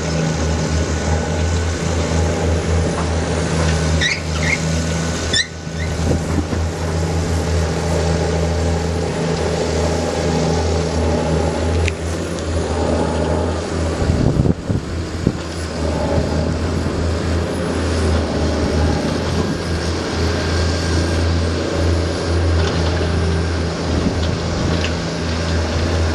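Heavy diesel engine of a Komatsu D155W bulldozer running steadily, with a brief surge in pitch about halfway through.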